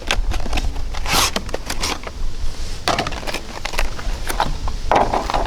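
Packaging and small parts being handled as the new LED turn signals are taken out of their box: irregular clicks, rustling and crinkling, with louder bursts about a second in, in the middle and near the end.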